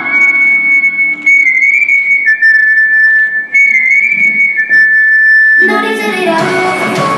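Medley backing track thinned to a high, steady whistle-like tone, joined twice by a slightly lower held tone, at a transition between songs. About six seconds in, the full music with drums comes back.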